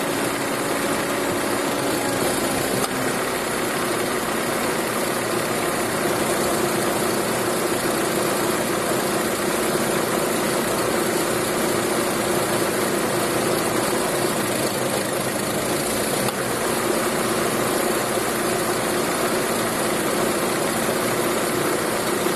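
Chevrolet Cruze engine idling steadily with the air-conditioning compressor engaged and running on its freshly replaced bearing, a steady even running sound with no loud bearing noise: the compressor is working normally.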